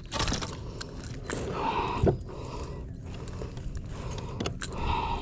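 Handling noise on a kayak: uneven scraping and rustling, with a short knock about two seconds in, as a freshly landed bass and fishing gear are handled.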